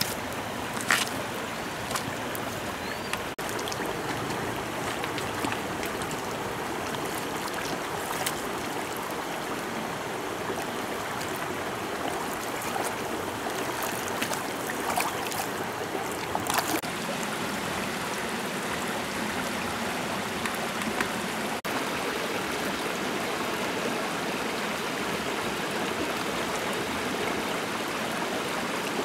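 Shallow stream running over stones, a steady rushing, with a few sharp clicks on top.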